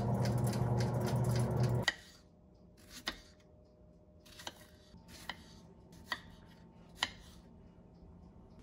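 A Cuisinart air fryer toaster oven running, a steady hum with a fast, even ticking from its wind-up timer, which stops about two seconds in. Then a knife slicing strawberries on a wooden cutting board: about five sharp knocks, roughly a second apart.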